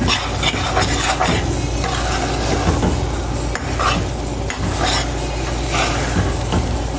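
A metal spoon stirs and scrapes thick coconut sugar cake mixture around a metal pot on the stove, with a scrape about once a second. The mixture has cooked down almost dry and is nearly ready to spoon out.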